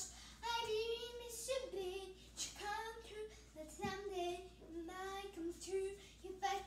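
A young girl singing alone and unaccompanied, in short held phrases that rise and fall in pitch.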